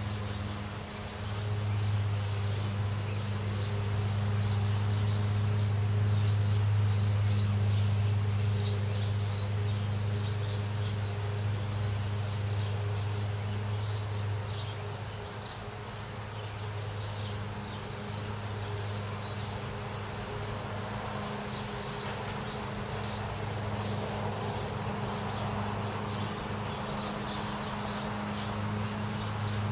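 Outdoor neighborhood ambience: a steady low hum with faint, repeated high chirps over it, and the wash of a passing car swelling about two-thirds of the way through.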